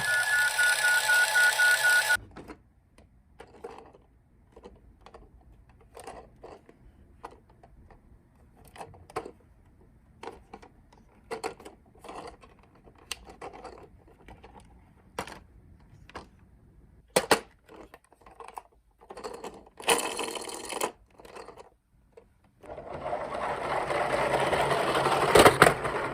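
A two-tone toy siren stops abruptly about two seconds in. Scattered light clicks and knocks of toy minicars being handled follow, then a few seconds of rolling rumble near the end.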